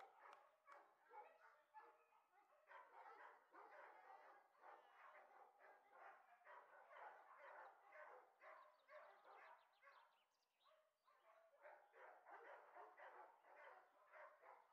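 Dogs barking over and over, faint, with a short lull about ten seconds in.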